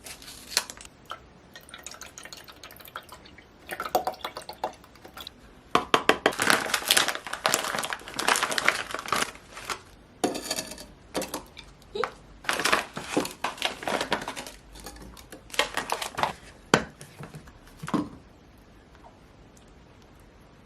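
Kitchen handling sounds: liquid sloshing and dripping, with clinks of dishes and utensils, in irregular bursts that fall quiet near the end.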